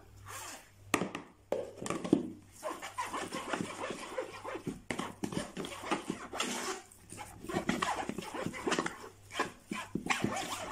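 A spoon scraping and pressing ricotta through a sieve into a plastic bowl: irregular scrapes with light knocks.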